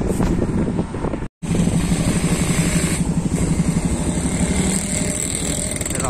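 Motorcycle engine running steadily while riding, heard from close up on the pillion seat. The sound cuts out completely for a split second just over a second in.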